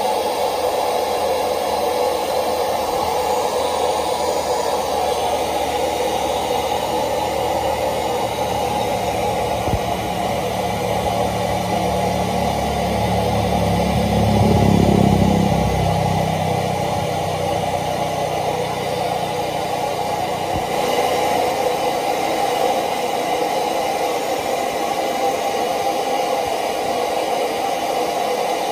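Steady test noise, a hiss, played through a large sound system while it is tuned against a measurement analyser. It is strongest in the middle range, with a deep low rumble that swells up and fades away about halfway through.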